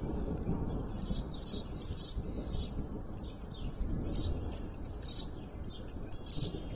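Wild birds chirping at a backyard feeder: short, high chirps, coming about two a second in runs, over a steady low background rumble.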